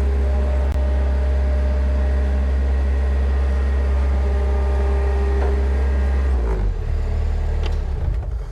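A motor running with a steady low hum, then winding down and stopping about six and a half seconds in.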